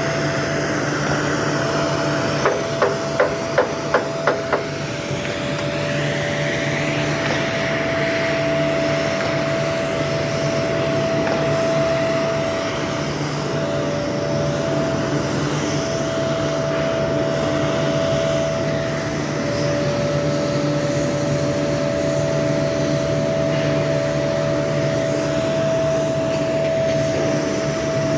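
Steady industrial machinery drone with a constant humming tone, and near the start a quick run of about seven sharp metal strikes, roughly three a second, like hammer blows.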